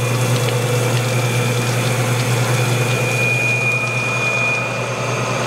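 Homemade Whizbang-style chicken plucker running empty: its motor hums steadily with a constant whine as the rubber-fingered plate spins. Water sprays from the ring of jets and splashes into the drum, then pours out of the drain chute.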